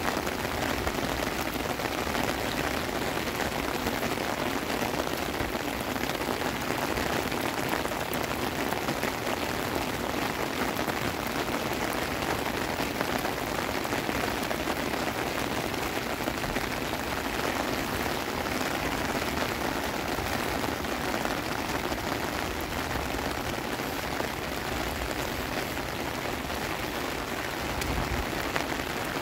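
Heavy rain pouring down steadily, drumming on wet pavement, an outdoor court and planted beds.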